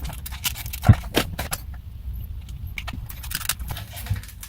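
Irregular clicking and rattling of small hard plastic parts being handled and pried at, with a low knock about a second in and another near the end, and a short lull in the middle.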